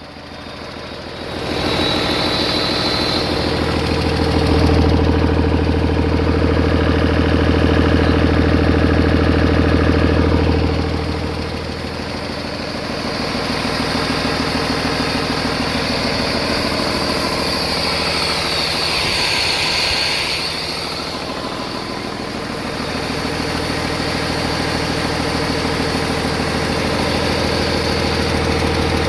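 2007 Cummins ISL 8.9-litre inline-six turbo diesel engine on a run test. It comes up loud about a second in, then runs with its speed raised and let down a few times.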